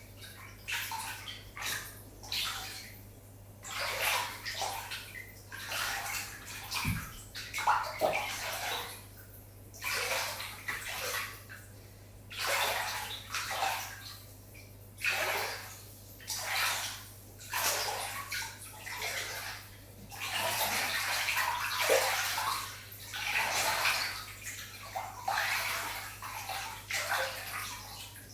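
Water splashing and sloshing in irregular swishes every second or two, as in a bath, over a steady low hum.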